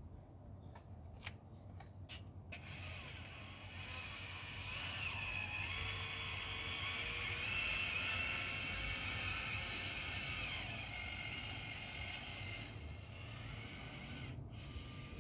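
A few sharp clicks, then a small mechanism whirring steadily with a high whine for about ten seconds before fading out.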